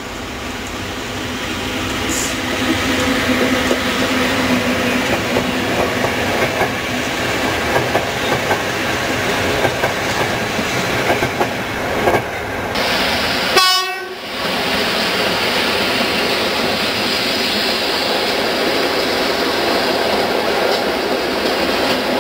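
Locomotive-hauled passenger train passing close by: steady rumble of wheels on rail with clacking over rail joints, growing louder over the first few seconds. The sound breaks off briefly about two-thirds of the way through.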